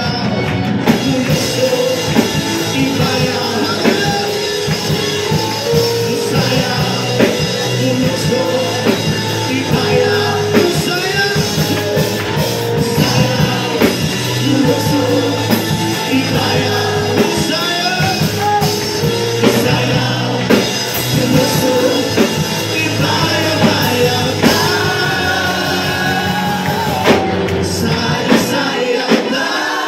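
Upbeat worship song with singing over a band and drum kit, the drums striking steadily; the bass drops out near the end.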